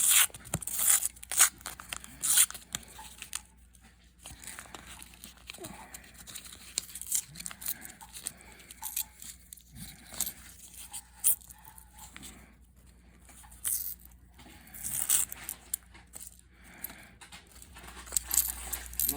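Paper wrapper of a bank roll of pennies being torn and crinkled open by hand, a run of irregular sharp rips and crackles.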